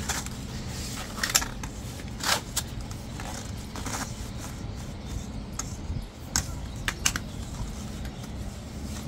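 Flexible corrugated plastic conduit being pushed and worked over a solar cable: irregular plastic clicks and scrapes, about half a dozen sharper ones, over a steady low background noise.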